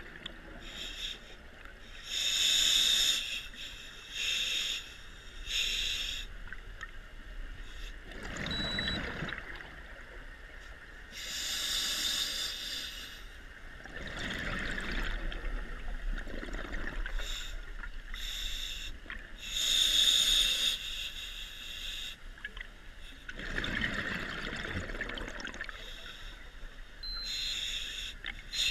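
Scuba diver breathing through a regulator underwater: slow hissing inhalations alternate with louder, rushing bursts of exhaled bubbles, a few breath cycles in all.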